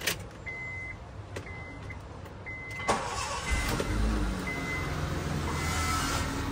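Honda Civic being started with the key: a click, a warning chime beeping about once a second, then the engine catches after a brief crank about three and a half seconds in and settles into a steady idle.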